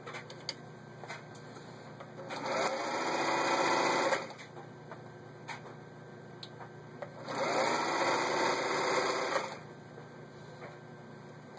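Elna TSP 72C zigzag sewing machine running in two bursts of about two seconds each, picking up speed at the start of each, stitching a blind-stitch pattern. Light clicks come in the quieter stretches between the bursts.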